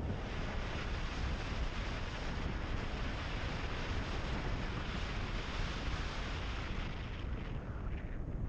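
Steady wind rushing over the microphone of a car driving on a gravel road, with the low rumble of the tyres on the gravel beneath it. The hiss dips briefly near the end.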